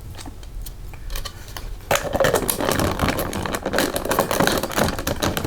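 Spoon clinking and scraping in a dog's food bowl while stirring yogurt into the meal: faint taps at first, then a dense run of rapid clicks and scrapes from about two seconds in.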